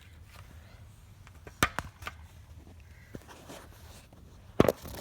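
A few sharp clicks and knocks of a spark tester and tools being handled while the tester is fitted to the string trimmer's plug lead: a pair about one and a half seconds in and a louder knock near the end.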